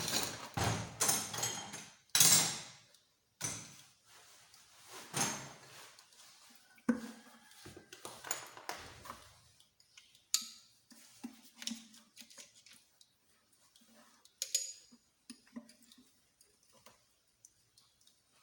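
Metal engine parts and tools clattering, scraping and clicking during hands-on motorcycle engine disassembly. Several loud rough scrapes and clanks come in the first half, then only scattered light clicks and taps.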